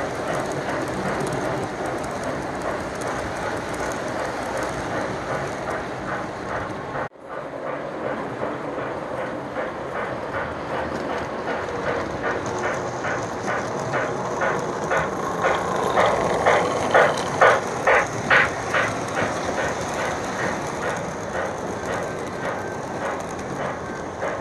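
Lionel Reading T1 4-8-4 O-gauge model steam locomotive and its passenger cars running on three-rail track, the wheels rumbling steadily on the rails. Its Digital Railsounds steam chuff beats out evenly and grows louder as the engine comes closer, loudest about two-thirds of the way through. The sound drops out for an instant about seven seconds in.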